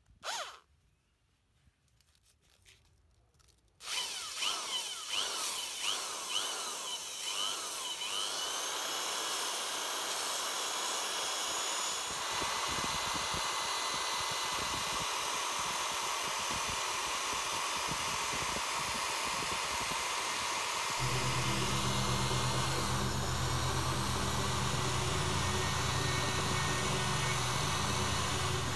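Corded electric drill starting about four seconds in, its motor speeding up and slowing several times in quick pulses before running steadily. It spins a steel rod in its chuck while sandpaper is pressed against the rod to polish it, giving a steady rubbing hiss over the motor whine.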